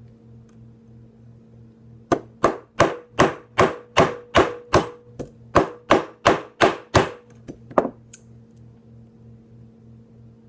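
Small hammer tapping a pin out of a pistol's parts, about fifteen sharp, evenly paced strikes at roughly three a second, ending with a few lighter taps.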